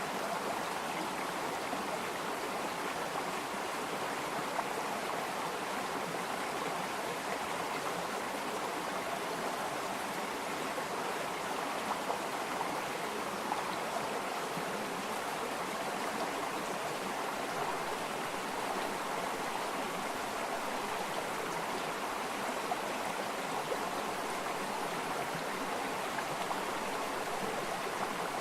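Water of a stream flowing, a steady unbroken rush of running water.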